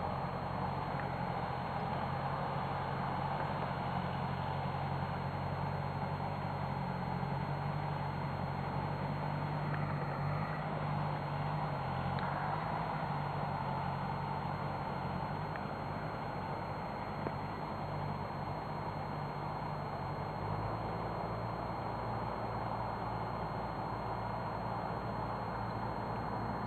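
An engine running steadily, with a low hum that shifts a little in pitch a couple of times, under a steady hiss.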